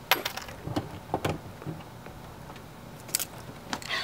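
A scatter of sharp clicks and light knocks, several in the first second and a half and two more near the end.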